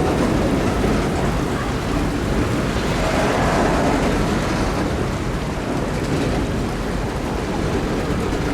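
Freight train moving slowly through floodwater over the track: a steady wash of churning, sloshing water over a low rumble.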